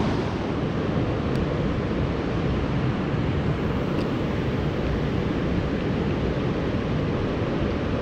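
River rapids rushing, a steady, even noise of fast-flowing water.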